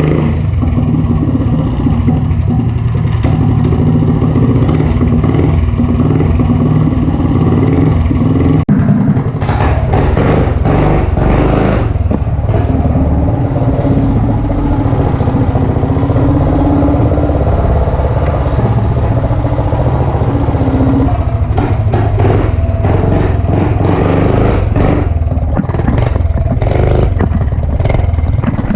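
Motovox 206cc flathead mini bike engine, running on methanol, running loud and steady while the bike is ridden, with an abrupt change about nine seconds in and rattly clatter after it.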